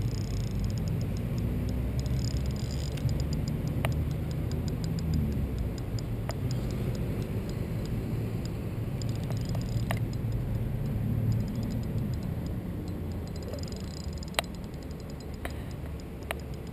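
Spinning reel ticking in fast, even runs while a hooked carp is played on light line, with a few single sharp clicks, over a steady low rumble.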